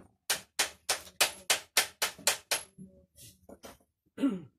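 A quick, even run of about ten sharp taps, about four a second, then a few softer, scattered knocks and clinks.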